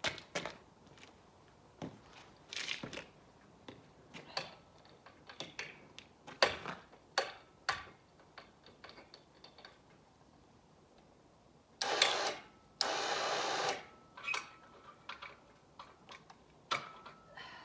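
Clicks and metal knocks as the cable winch and pulley rigging on a round-bale trailer are handled and set. About twelve seconds in there is a short loud burst of noise, then a steady mechanical noise for just over a second.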